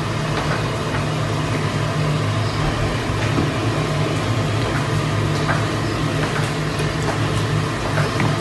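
Steady low mechanical hum with a few faint light taps, as chicken drumsticks are set down on a metal grill rack.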